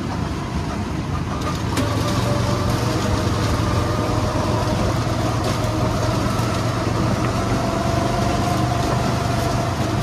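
Motor vehicle running steadily, a constant mix of engine hum and road or wind noise with a faint tone that drifts slightly in pitch.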